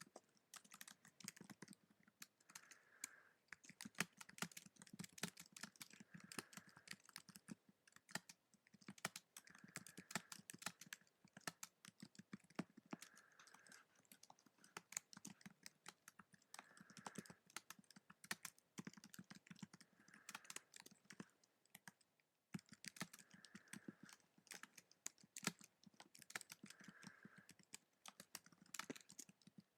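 Computer keyboard being typed on, quiet key clicks in quick irregular runs with short pauses.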